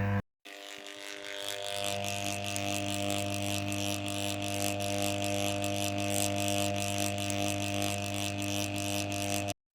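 A machine running with a steady hum and a fast, even mechanical ticking over it, fading in over the first second or so and cutting off suddenly near the end.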